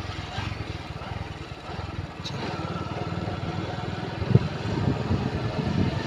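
Motorcycle engine running steadily while riding along a dirt track, with a single sharp thump a little past four seconds in.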